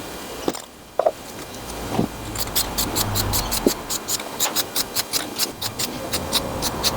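A few separate knocks, then from about two seconds in background music with a steady quick beat of ticks, about four a second.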